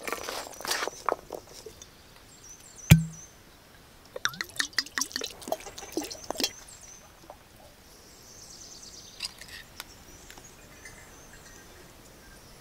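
Chopped vegetables and herbs rustling and crunching as they are mixed, then a single loud thump about three seconds in. After that, vinegar is poured from a glass bottle into a glass jar of pickle, with splashing, drips and light glass clinks.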